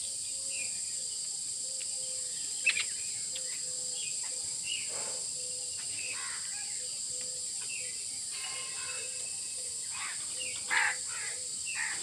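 Crows cawing several times, the loudest call near the end, with scattered chirps from smaller birds over a steady high-pitched drone of insects.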